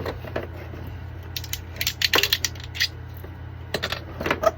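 Hard plastic clicking and snapping as 3D-printed figurine parts are handled, twisted and broken off their supports, with a cluster of sharp clicks about two seconds in and another near the end.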